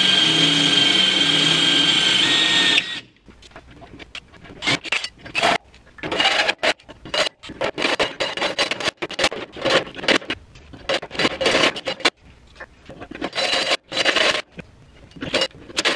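Cordless drill running steadily with a high whine for about three seconds while pre-drilling a pilot hole in the sheet-metal radiator core support. Then a 4-inch hole saw on the drill bites into the metal in short, irregular stop-start bursts.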